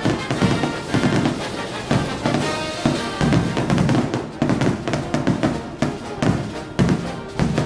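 Aerial fireworks shells bursting in a continuous string of bangs and crackles, with music playing at the same time.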